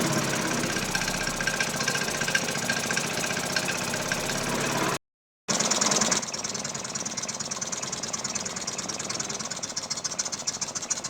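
Piaggio Liberty 125 scooter's single-cylinder four-stroke engine running with a rough, rattly beat, cutting off abruptly about five seconds in and resuming half a second later. The engine runs weak and struggling, only just kept alive after starter spray and a new spark plug, a sign that something is badly wrong, with the carburettor next to be checked.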